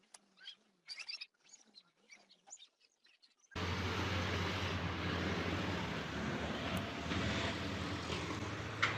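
Faint scattered chirps, then about three and a half seconds in an abrupt cut to a loud, steady rumble and hiss with a low hum, typical of a vehicle running.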